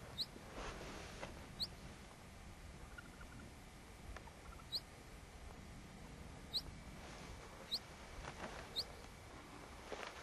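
Six short, high-pitched peeps, each a quick upward sweep, spaced irregularly a second or more apart, with soft rustling twice in between.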